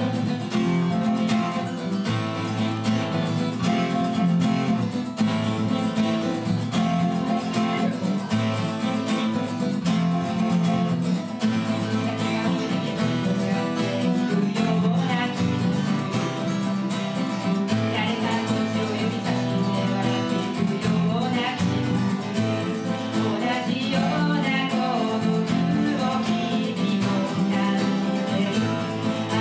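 Two acoustic guitars strummed together, playing a pop song's intro; from about twelve seconds in, a woman's singing voice comes in over the guitars.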